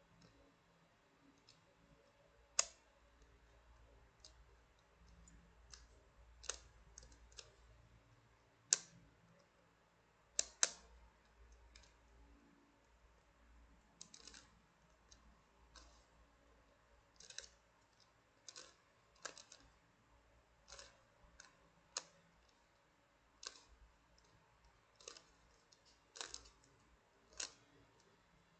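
YongJun Yeet Ball, a plastic spherical twisty puzzle, being turned by hand. Its pieces click irregularly, about one or two sharp clicks a second, with a few louder snaps.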